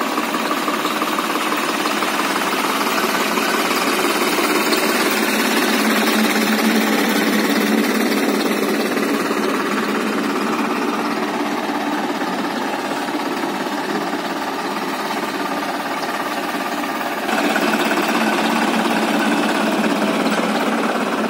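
Farm tractor's diesel engine running steadily under load as it drags a land leveler blade through dry soil, getting a little louder about sixteen seconds in.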